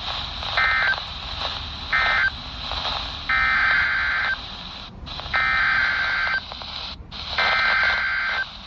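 NOAA Weather Radio SAME data bursts: two short end-of-message bursts, then three longer bursts of about a second each, about a second apart, that make up the header of the next alert, a tornado warning. Steady radio hiss runs underneath.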